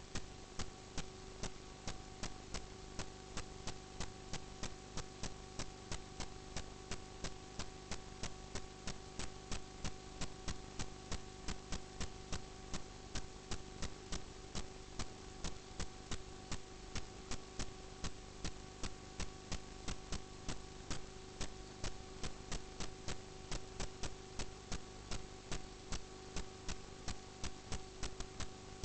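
Steady electrical hum with a few fixed tones, under an even ticking of about two to three clicks a second, the kind of electrical noise picked up by a sewer inspection camera's recording.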